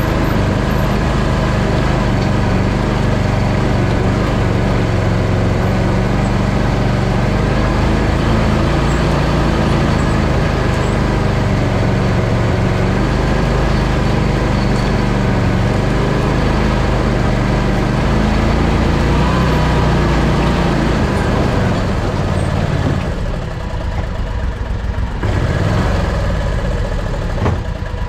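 Engine of an Argo amphibious ATV on tracks running steadily under load as it drives and climbs. It eases off briefly about three-quarters of the way through, then picks up again.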